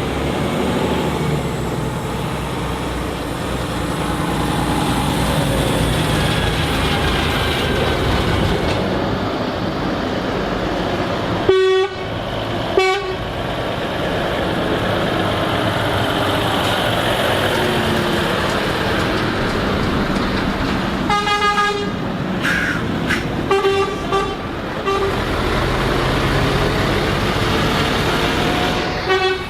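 Arriving trucks running, with truck horns sounding: two short blasts about twelve seconds in, then a burst of several horn blasts a little past the middle.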